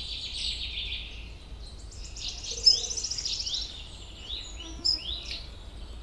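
Small birds calling: a string of short, high, rising notes, with a fast high trill among them about two seconds in, over a faint high hiss in the first second.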